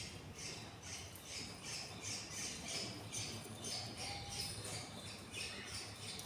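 Budgerigar chicks giving faint, rhythmic begging chirps, about three a second: hungry nestlings calling for food.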